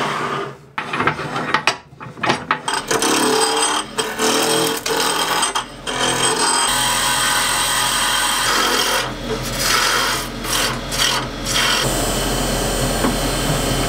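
A Record Power Maxi-1 wood lathe spinning a wooden blank while a turning gouge cuts it, giving a steady rasping, scraping noise over the low hum of the lathe. In the first couple of seconds there are a few knocks as the blank is clamped in.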